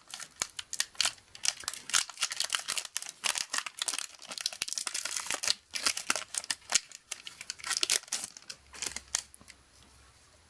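Foil wrapper of a Magic: The Gathering booster pack being torn open and crinkled, a rapid irregular crackling that stops about nine seconds in.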